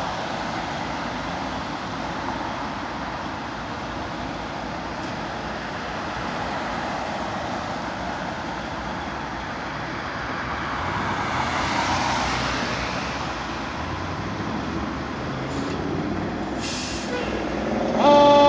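Steady street traffic noise with a vehicle passing about midway, and two short air hisses from the fire truck's air brakes near the end. In the last half second the ladder truck's siren starts up, loud and high.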